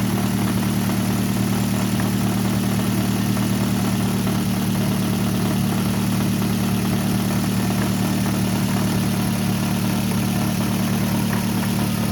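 Car engine idling with a steady, even hum.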